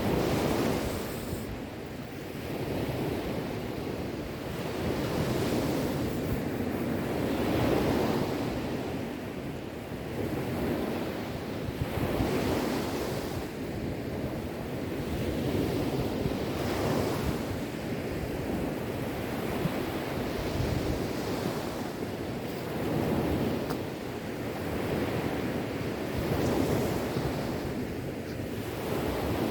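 Sea waves breaking and washing on the shore, a continuous surf noise that swells and ebbs every few seconds.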